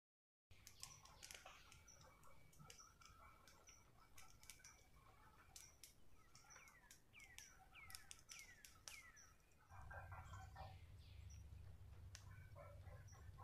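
Quiet forest ambience with birds calling, including a run of about five short downward-slurred calls in the middle, and scattered clicks. A low steady hum comes in near the end.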